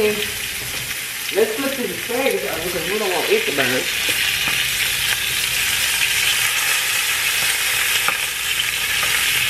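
Bacon-wrapped asparagus sizzling steadily in a hot pan as the pieces are turned with metal tongs.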